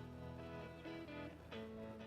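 Background music: guitar, plucked notes changing about every half second.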